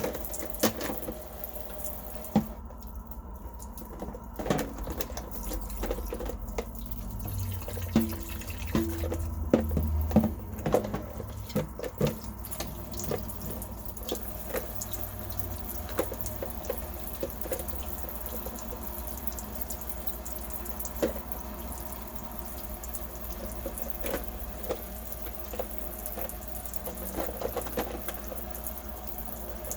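Water running and dripping in a sink, with scattered sharp clicks and knocks, busiest in the first half.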